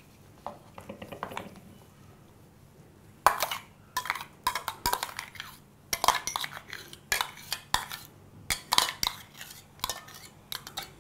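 Metal spoon scraping and tapping inside a stainless steel mixer-grinder jar, scraping out thick ground chutney: a few soft scrapes at first, then from about three seconds in an irregular run of sharp clinks and scrapes.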